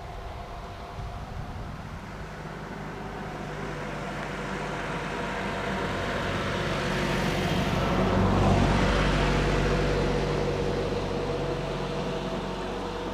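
A motor vehicle driving past: engine and tyre noise grow steadily louder, peak about eight seconds in, then fade away.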